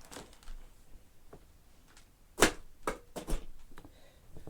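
Sharp plastic clicks and knocks as a vacuum cleaner part is handled and fitted on. The loudest knock comes about two and a half seconds in, followed by a few quicker clicks; the vacuum is not running.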